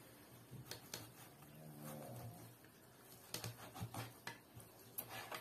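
Kitchen knife knocking and scraping on a cutting board as skin is trimmed from raw meat: faint, irregular taps, most of them bunched together in the second half. A short, low sound with a pitch is heard about two seconds in.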